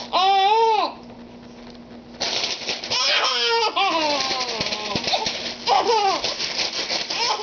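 Baby laughing in delighted squeals: a long pitched laugh at the start, a short lull, then more bursts of laughter. From about two seconds in, a steady crinkling rustle of a plastic grocery bag runs under the laughs.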